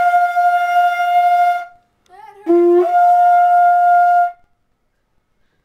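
Conch shell trumpet blown as a wake-up alarm: two long, loud blasts. The second opens on a short low note and breaks up about an octave to a steady held tone.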